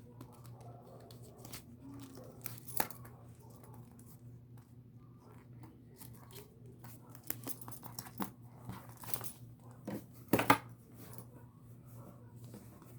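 Unpacking and handling a rolled throw blanket: scattered rustles, clicks and a few sharp snip- or tear-like sounds, the loudest about ten seconds in.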